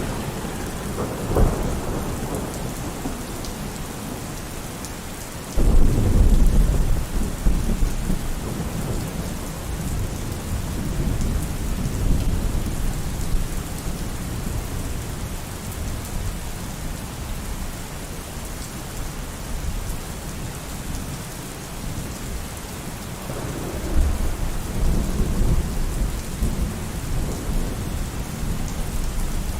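Steady rain with thunder rumbling. There is a brief rumble about a second in, then a sudden loud clap about six seconds in that rolls on for several seconds, and another long rumble near the end.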